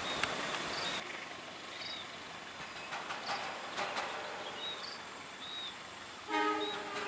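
Approaching diesel passenger train running, with a few faint clicks from the rails. About six seconds in, the locomotive sounds one short horn blast. Short high chirps recur in the background.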